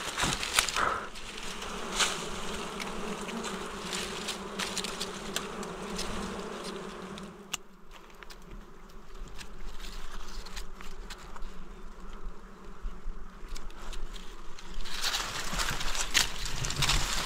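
Steady buzzing of a flying insect hovering close by, with scattered clicks and a louder rustle near the end.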